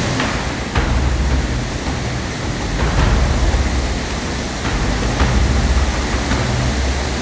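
Loud, steady roar of the Varone waterfall: an even rush of falling water with a heavy low rumble underneath.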